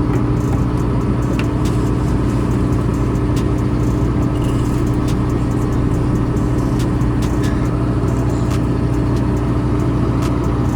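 Corn harvester's engine running steadily, a constant loud drone with a few faint clicks over it.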